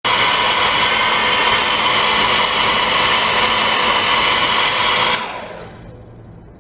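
Electric motors and propellers of a small VTOL model drone running with a steady high-pitched whir, then winding down about five seconds in, the whine falling in pitch and fading as the propellers slow.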